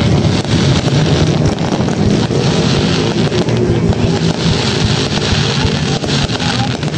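Aerial fireworks display going off in a rapid, continuous barrage of bangs and crackles.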